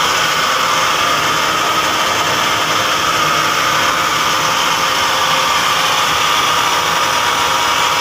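Hitachi RP-100WSY screw compressor running steadily: a loud, even mechanical whir with a constant high hum, unchanging throughout.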